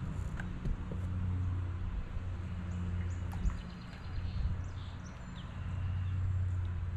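Low engine hum that swells and fades several times, with faint bird chirps over it.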